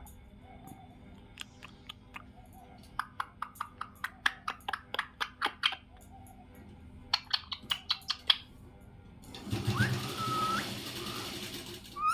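Pet parrot clicking in two quick runs of sharp taps, then a harsh, rasping call with a short rising whistle about nine seconds in.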